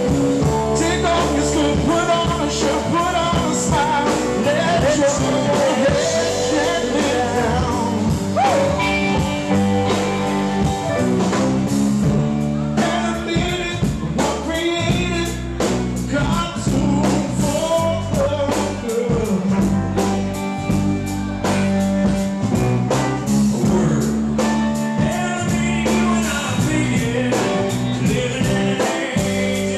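Live rock band playing a song: electric guitars, keyboard and drums with a sung lead vocal.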